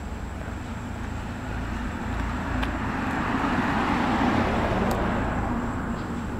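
A car passing by. Its tyre and engine noise swells up, peaks in the middle and fades away over about four seconds.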